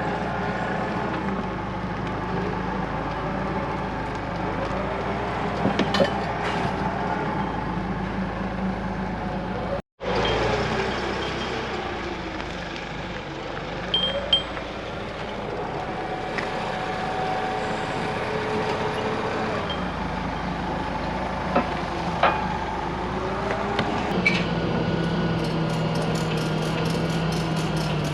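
Truck and machinery engines running steadily, with a few sharp metallic clanks. Near the end a steadier engine hum sets in with a rapid, regular ticking.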